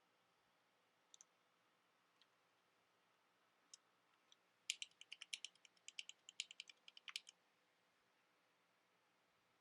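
Mechanical keyboard switches being pressed: a few single clicks, then a quick run of about twenty sharp clicks lasting over two seconds near the middle.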